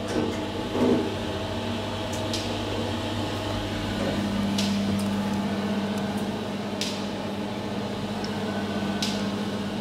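Steady low machine hum that grows stronger about four seconds in, with a short faint high click roughly every two seconds.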